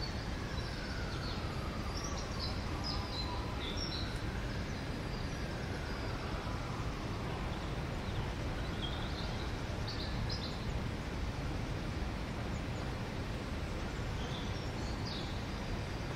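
Steady outdoor ambient noise with small birds chirping in short scattered bursts, in three clusters across the stretch. In the first half a faint wailing tone rises and falls twice, slowly.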